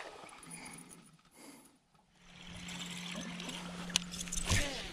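Steady low hum of a bass boat's electric trolling motor, starting about two seconds in, as a baitcasting rod casts a lure toward the bank. There is a sharp click about four seconds in and a short louder rush just after.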